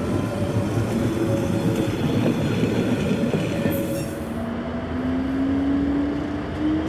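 Bernese Oberland Railway electric train running, with a steady rumble of wheels on rail. After a change about halfway through, an electric motor whine rises slowly in pitch.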